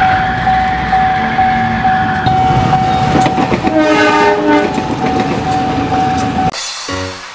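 Railroad crossing warning bell ringing steadily as a train passes, with the clatter of wheels on the rails; the train horn sounds for about a second about four seconds in. Near the end the sound cuts off and piano music begins.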